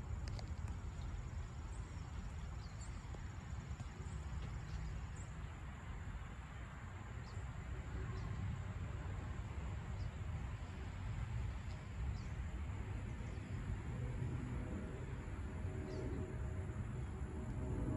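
Distant jet airliner rumbling overhead, with an engine whine building near the end as it comes closer. Insects buzz steadily and faintly in the background.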